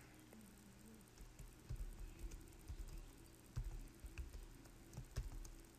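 Faint, scattered keystrokes on a computer keyboard: a few separate clicks and soft thumps as code is typed.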